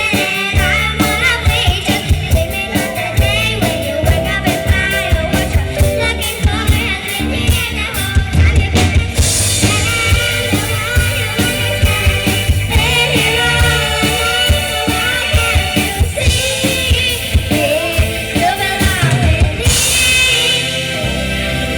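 A young band playing live: sung vocals over drums, electric guitar, keyboard and bass, with a steady beat.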